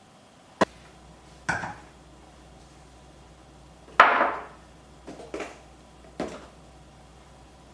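Food jars and containers knocked and set down on a hard surface: about five short clatters, the loudest about four seconds in.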